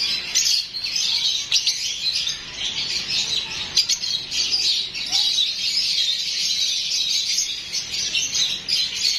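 Many caged birds chirping at once: a dense, continuous, high-pitched twittering with no pause.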